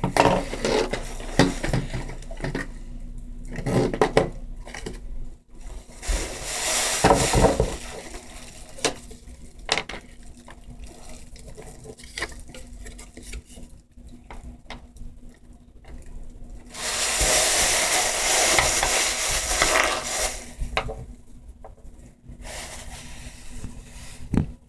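Small hard objects being handled and set down, with repeated clicks and knocks. About two-thirds of the way through come a few seconds of steady scraping or rustling.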